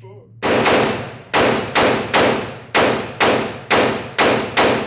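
AR-15 rifle fired rapidly in semi-auto, about ten shots in quick succession, each with an echoing tail.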